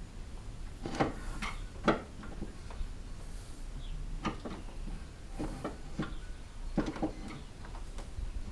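Irregular metallic knocks and clunks, about seven in all, as the replacement A/C compressor is worked down into the engine bay and bumps against the surrounding parts. The loudest knocks come about one and two seconds in.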